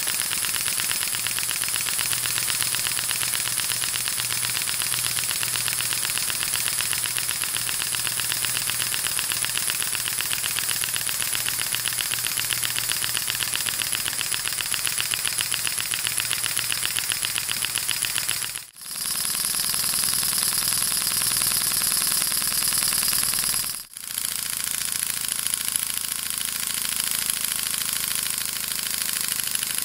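Single-cylinder model steam engine, hand-machined to Elmer Verberg plans, running fast: a rapid, even clatter of exhaust beats over a steady hiss. The sound briefly drops out twice, about 19 and 24 seconds in.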